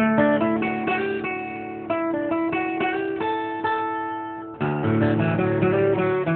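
A Bob Thompson D-18 steel-string dreadnought acoustic guitar, with a red spruce top and mahogany back and sides, played solo. A strummed chord is followed by quick picked melody notes, then a chord left to ring and die away before a fresh strummed chord about four and a half seconds in.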